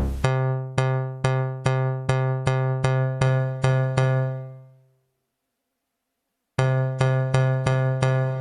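Elektron Digitakt mkII sampler playing one pitched bass stab sample, retriggered over and over on the same note, two to three times a second. The repeats fade out a little past halfway, stop briefly, then start again near the end.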